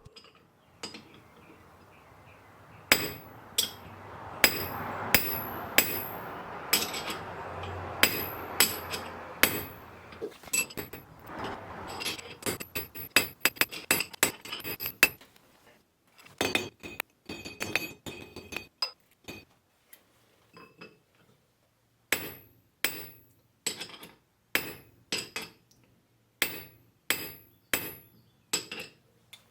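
Hammer blows on a steel ring mandrel, sizing a gold ring: sharp metallic strikes with a bright ring after each. Many blows in the first half, a spell of quick light taps, then a steady run of blows about one and a half a second near the end.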